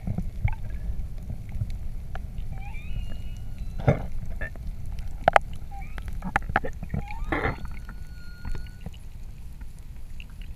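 Underwater sound picked up by a diver's camera on a freedive descent: a steady low rushing rumble of water moving past the housing, with scattered clicks and crackles and a few faint high whistling tones.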